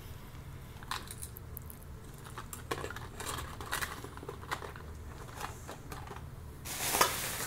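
Small black plastic drone spare parts (arm pieces and propellers) clicking and rattling against each other in a small cardboard box as they are handled. Near the end, a loud scraping rustle as the cardboard box is closed.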